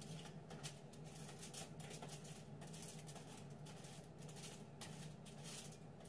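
Faint, scattered soft crinkles and taps as bacon-wrapped asparagus bundles are set down on a foil-lined baking tray, over a steady low hum.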